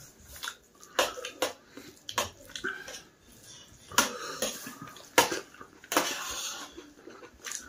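Eating rice and curry by hand from a steel plate: fingers squelching and scraping through the wet food against the metal, with wet chewing, as a string of short, sharp, irregular sounds.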